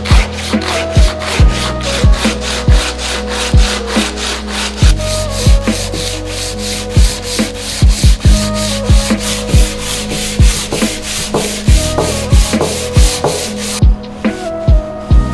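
Fast, evenly spaced rasping strokes, about four or five a second, over background music with held, stepping notes and deep pulses; the strokes stop near the end while the music carries on.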